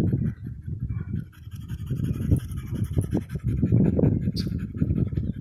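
Wind buffeting the phone's microphone in uneven gusts of low rumble, with faint bird chirps behind it.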